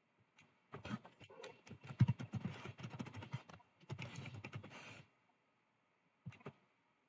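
Computer keyboard typing: a quick run of key clicks lasting about four seconds with a short pause partway, then a brief pair of clicks near the end.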